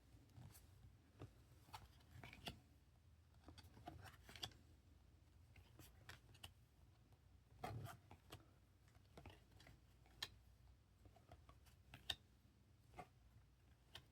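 Faint clicks and light scrapes of chrome trading cards being flipped and slid against one another in the hands, a handful of small ticks with a somewhat louder shuffle about halfway through.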